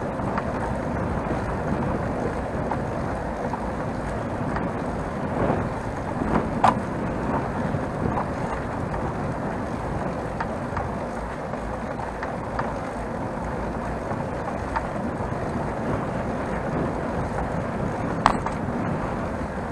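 Bicycle riding on a paved path: a steady rush of wind and tyre noise, with a few sharp clicks and rattles from the bike, the loudest about a third of the way in and near the end.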